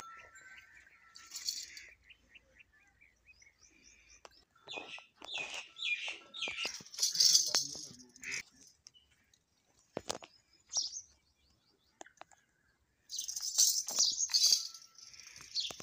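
Birds chirping and calling in short bursts and quick trills, with a few sharp clicks between them.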